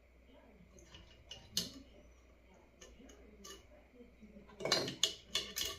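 Small plastic and circuit-board parts of an electronics kit being handled and fitted together by hand: scattered light clicks, then a quick run of louder clicks and rattles near the end.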